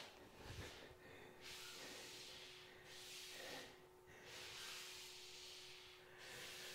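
Faint hissing swells, each a second or more long, coming about every two to three seconds from a person doing hamstring slides, over a faint steady hum.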